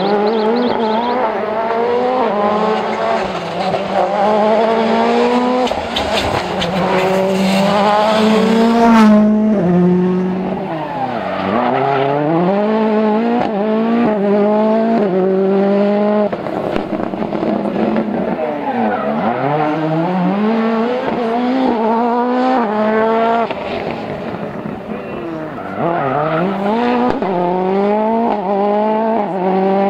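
World Rally Car engines, turbocharged 1.6-litre four-cylinders, accelerating hard through the gears, the revs climbing and dropping back with each upshift. A few times the revs fall away under braking and climb again.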